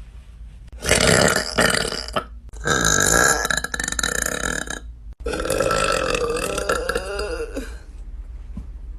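A woman burping loudly, three long drawn-out belches in a row, the last two lasting over two seconds each.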